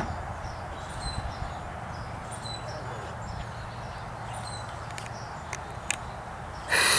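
Small bird chirping in short falling notes, about one a second, over a steady outdoor hiss. A loud, brief rasping noise comes near the end.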